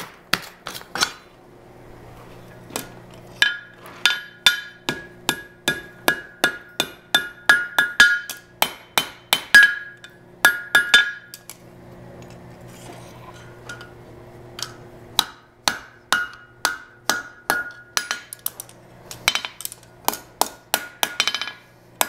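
Hand hammer striking a red-hot steel horseshoe on the heel of an anvil to straighten out one leg. A long series of ringing blows, about two to three a second, in runs broken by a couple of short pauses.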